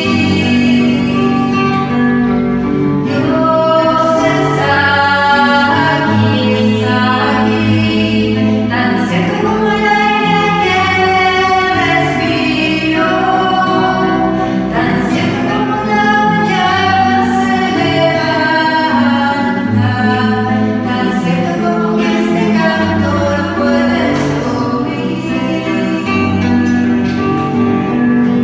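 Slow sung hymn: voices holding long notes over a steady low accompaniment.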